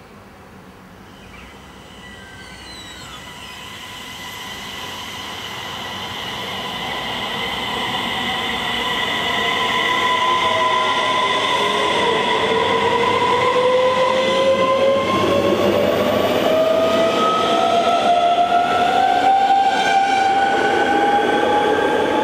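Electric passenger train approaching and passing close by, growing steadily louder over the first ten seconds. In the second half a whine from the train rises slowly in pitch.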